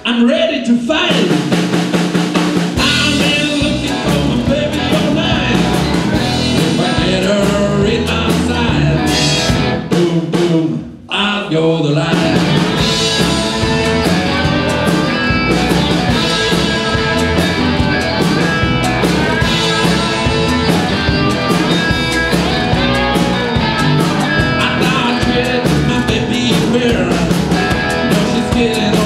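Live band playing rock-blues on cigar box guitars with a drum kit. A guitar riff opens alone, drums and bass come in after about three seconds, a short break falls near the middle, and then the full band plays on.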